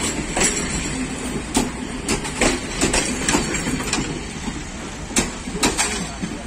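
Passenger train coaches rolling past at close range: steel wheels clacking over the rail joints, often in quick pairs, over a low rumble. The clacks stop as the last coach passes near the end.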